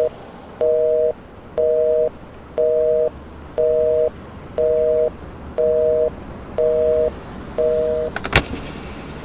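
Telephone busy signal: a two-note tone beeping about once a second, half a second on and half off, eight or nine times. The line is engaged and the call does not go through. It stops near the end with a sharp click.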